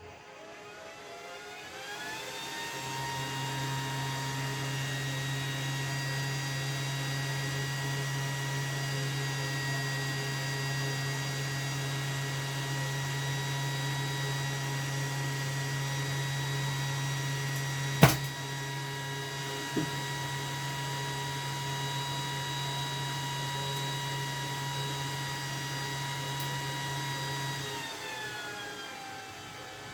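Bonding machine's electric motor spinning up with a rising whine, running steadily with a low hum, then winding down near the end. One sharp click a little past halfway and a fainter one soon after.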